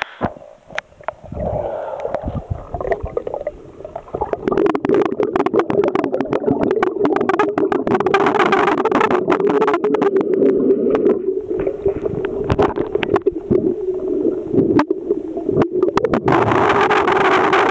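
Underwater noise picked up by a submerged camera in a swimming pool: gurgling and dense crackling over a steady hum, which grows louder about four seconds in.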